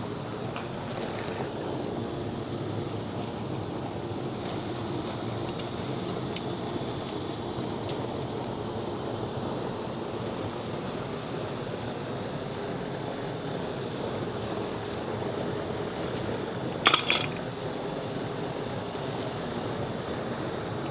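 Steady outdoor background hiss and rumble, with a few faint clicks of work on the pump motor's wiring and conduit, and one sharp metallic clink about three-quarters of the way through.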